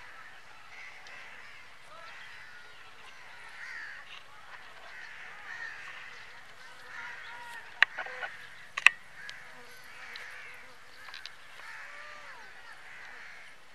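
A chorus of birds chirping and calling without a break, many overlapping short warbling calls. Two sharp clicks about a second apart come just past the middle.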